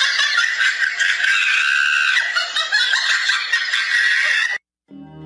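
Loud, shrill screaming sound effect, dense and high-pitched, that cuts off suddenly near the end, followed by the start of soft music.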